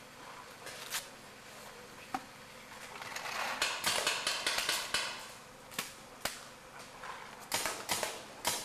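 Paintball markers firing: a few single shots, then rapid volleys of sharp pops about halfway through and again near the end.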